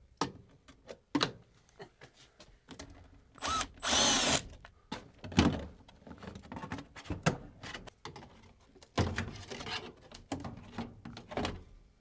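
Cordless drill-driver backing a sheet-metal screw out of a furnace's coil cabinet, whining in one short run about four seconds in. Scattered clinks, knocks and scrapes of sheet metal being pried with a screwdriver run through the rest, with a heavier knock near the end.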